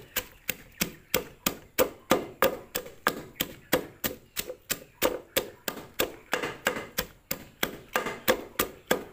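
Pestle pounding garlic and red chilies in a mortar, crushing them to a paste: a steady run of sharp knocks, about three a second.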